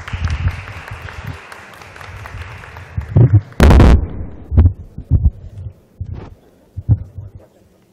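Audience applauding briefly and dying away over heavy low thumps. A loud, short bump about three and a half seconds in, followed by a few single low thumps.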